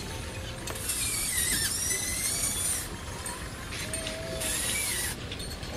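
Remote-controlled model excavator's small motors and hydraulic pump whining in two bursts as the machine moves: a longer one about two seconds long, then a shorter one near the end. Each burst has a high hiss and a whine that slides in pitch.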